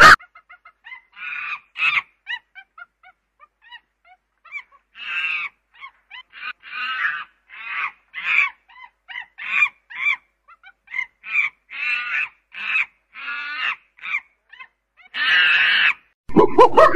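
Monkey calls: a run of short, pitched calls about one to two a second, with one longer, louder call near the end.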